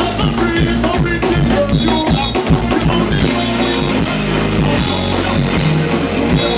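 Live band playing an upbeat number: a drum kit and shoulder-slung hand drums keep a steady beat under electric guitar.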